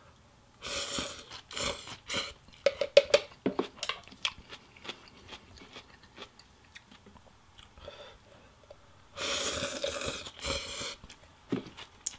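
A person eating pho rice noodles, with wet chewing and smacking clicks between a few short noisy slurps, and a longer pair of slurps near the end.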